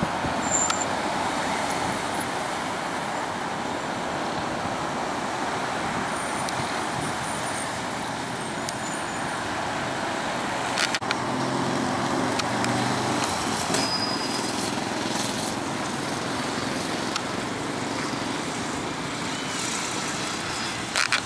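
Jet airliner climbing away after takeoff: a steady rushing jet-engine noise that slowly fades.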